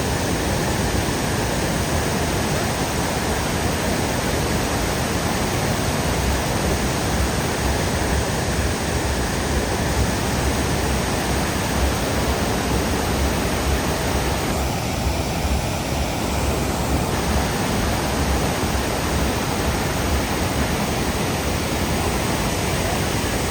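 The Great Falls of the Passaic River: a large waterfall's steady, unbroken rush of falling water.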